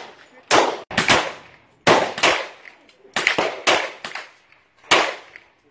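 GSG 1911 .22 LR pistol firing a string of about seven shots at an uneven pace, each a sharp crack that dies away quickly.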